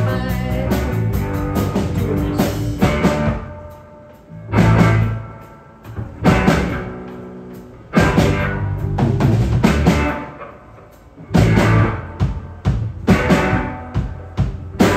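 Live rock band, drum kit and electric guitars, playing the song's closing section: several big accented hits, each left to ring and fade, between stretches of full-band playing.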